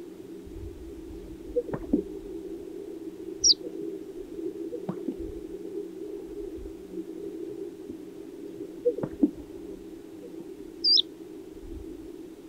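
Male greater sage-grouse strutting display, twice: each time a quick run of low popping sounds as the inflated air sacs are released. Each display is followed by a sharp, high, falling chirp, over a steady low drone.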